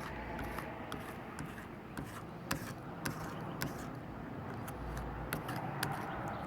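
A scraping tool working leftover adhesive off a Surface Pro 3, giving scattered sharp clicks and ticks over a steady low background noise.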